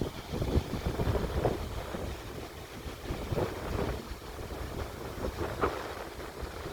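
Wind buffeting the microphone in uneven gusts: a low, irregular rumble.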